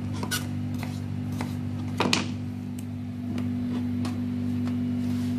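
A knife cutting a peeled potato on a plastic cutting board: a series of short, sharp knocks, the loudest cluster about two seconds in. A steady low hum runs underneath.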